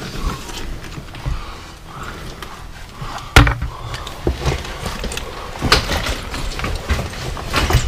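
Footsteps over loose slate rubble: irregular knocks and clatter of slate pieces underfoot, with one loud thump about three and a half seconds in.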